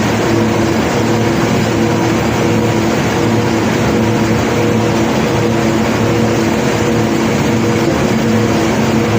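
A large diesel engine of the unloading machinery running steadily, with a constant hum of several low tones and no distinct impacts.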